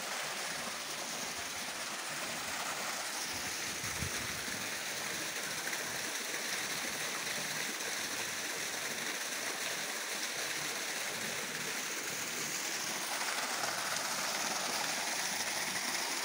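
Spring water pouring from a spout into stone basins and a concrete pool: a steady rushing of water.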